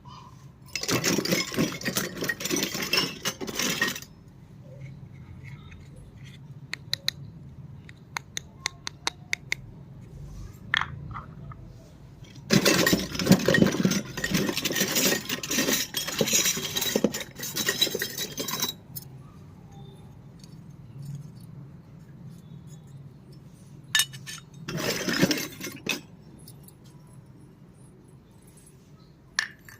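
Unboxing of a miniature plastic kitchen toy set: several bursts of a few seconds of rustling and scraping as packaging and pieces are handled. Between them, a quick run of light clicks and clinks from small pieces being set down and tapped.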